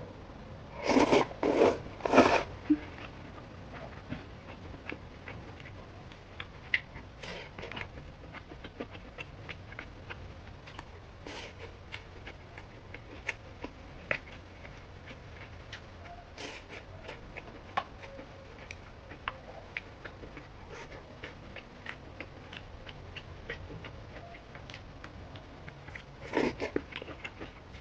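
Close-up eating sounds: chewing with many faint crisp crunching clicks, typical of crisp pickled cabbage eaten with rice. A few louder, short noises come about a second in and again near the end.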